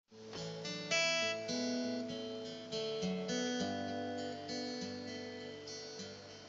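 Acoustic guitar music: separate picked notes that ring and fade, an instrumental intro before any singing, growing a little quieter toward the end.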